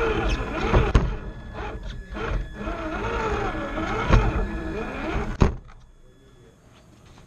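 RC rock crawler's electric motor and gears whining, rising and falling in pitch as the throttle changes, with knocks and scrapes from the truck working over the course obstacles. A sharp knock about five and a half seconds in, after which the drivetrain stops and only faint background is left.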